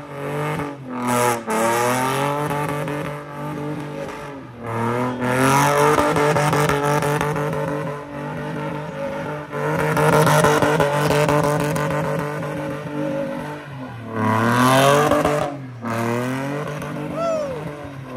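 Car doing donuts: its engine revs hard in repeated swells while the tyres spin and smoke. The revs climb in the first couple of seconds, dip about four seconds in, hold high through the middle, drop and surge again around fourteen to fifteen seconds, and start falling right at the end.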